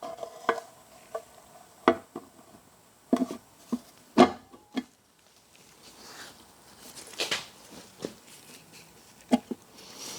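Sharp metallic clinks and knocks, some ringing briefly, as a motorcycle engine's sump pan is handled and lined up against the crankcase. A scraping rustle comes about seven seconds in.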